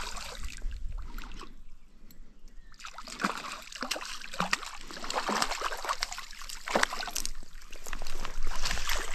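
A hooked tench thrashing at the water's surface among reeds and being scooped into a landing net: splashing at the start, a short lull, then a run of quick, sharp splashes from about three seconds in, loudest near the end.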